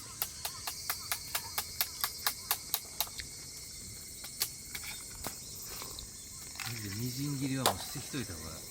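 Knife chopping on a cutting board in a quick, even rhythm of about four strokes a second for roughly three seconds: food being minced. A steady chorus of insects runs underneath.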